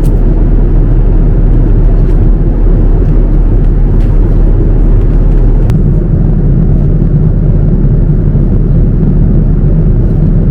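Steady low cabin rumble of a Boeing 787-9 airliner on the ground after landing, with a few faint clicks.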